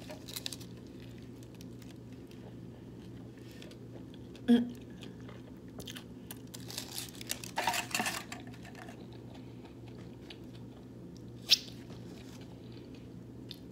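A person eating on camera: chewing and biting food with small mouth and handling clicks over a faint steady hum. A short, louder knock comes about four and a half seconds in, and a sharp click near the end.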